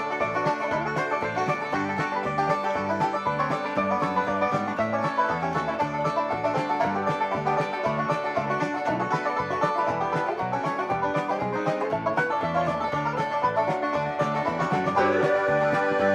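Country-bluegrass music in an instrumental break: fast-picked banjo over guitar, with no singing. Held chords come in near the end.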